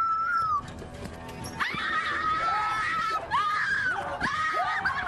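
High-pitched screams of frightened people, one long shriek at the start and then a run of shrieks from about a second and a half in, with music underneath.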